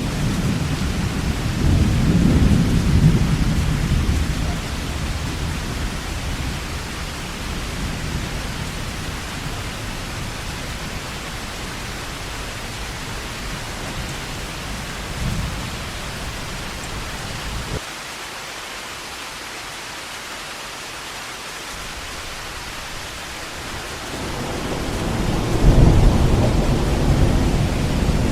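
Heavy rain falling steadily, with rolls of thunder: a deep rumble that fades over the first few seconds, and another that builds near the end.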